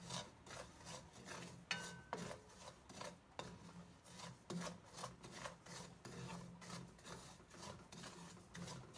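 Wooden spatula stirring and scraping coarse salt around a stainless steel pan as the salt dry-roasts: a faint, gritty scraping in even strokes about two a second.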